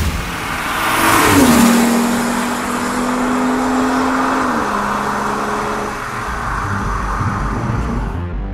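BMW 7 Series G12's B58 turbocharged inline-six running through an H.DRIVE titanium valved exhaust as the car drives past at speed. The exhaust note swells to its loudest about a second and a half in and drops in pitch as it passes, then holds a steady drone that steps lower about halfway through and fades away.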